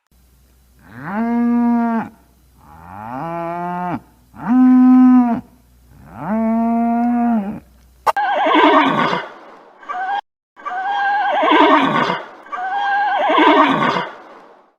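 Cattle mooing four times, each a long, steady call, followed by a horse whinnying three times, each call wavering and falling in pitch.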